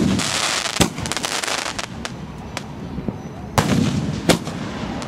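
Aerial fireworks bursting overhead: a sharp bang at the start followed by about a second and a half of crackling, another bang just under a second in, then two more loud bangs later, well under a second apart.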